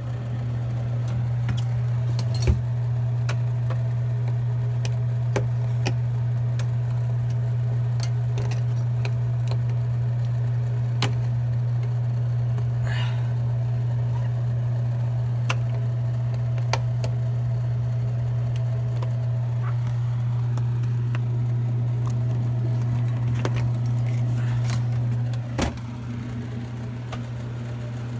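A steady low electrical hum, like a mains-powered motor or appliance running, with scattered sharp clicks and light knocks of handling. The hum eases near the end.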